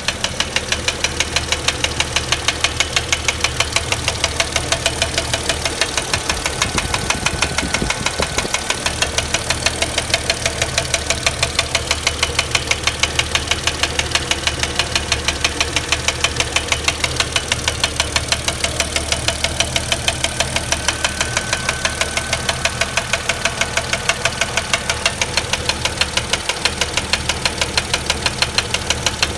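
Mercedes-Benz M112 V6 engine in a W210 E-Class idling with a steady, regular knock, several strikes a second. The knock comes from a used contract replacement engine.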